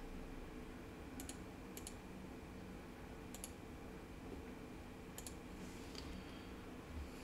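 Computer mouse clicks: about five short, sharp clicks, most heard as a quick double tick, spaced a second or two apart, over a faint steady room hum.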